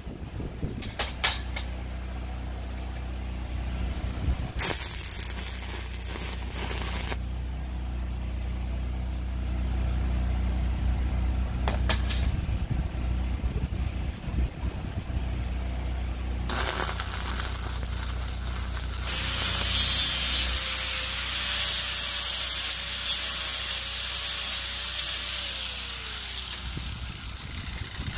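Angle grinder running on steel: a high whine over a harsh grinding noise that starts about two-thirds of the way in, its pitch dipping and recovering as the disc is pressed into the work, then winding down after it is switched off near the end. A short burst of hiss comes about five seconds in.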